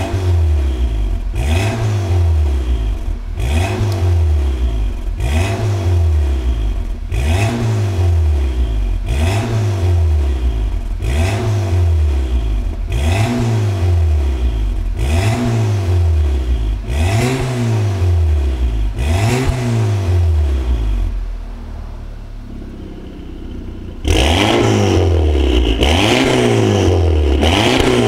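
Audi TT 8J's 2.0 TFSI turbocharged four-cylinder revved in quick repeated blips, about one a second, through an Armytrix valve-controlled exhaust. About 21 seconds in it settles to a quieter idle for a few seconds, then jumps back suddenly to full loudness as the revving resumes.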